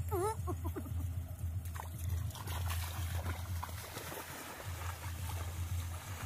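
A short voiced exclamation at the start, then crabs roasting on a stick grill over a wood fire, crackling and sizzling with scattered small pops over a steady low hum.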